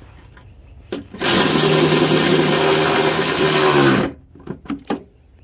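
Cordless electric ratchet running steadily for about three seconds as it drives a bolt on a socket extension, its pitch sagging slightly just before it stops. A few sharp clicks come just before it starts and again after it stops.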